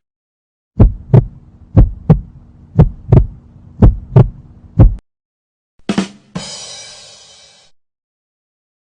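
Heartbeat sound effect: pairs of deep thumps about once a second over a low hum, stopping about five seconds in. About a second later comes a sharp hit, then a bright ringing noise that fades out.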